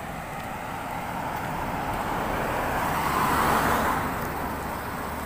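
A motor vehicle passing on the road, its noise building to loudest about three and a half seconds in and then fading, over steady traffic noise.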